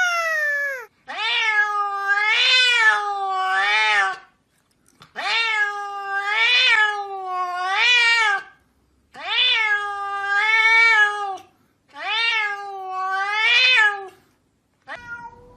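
A cat meowing in long, drawn-out calls that waver up and down in pitch, four in a row with short pauses between them.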